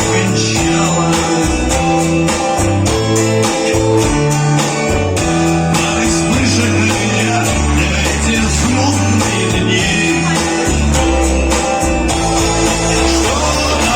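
Rock song played on guitar over a steady bass line and drum hits, with some singing.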